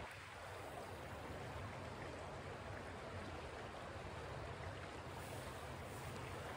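Steady rush of a fast-flowing river running high in spring.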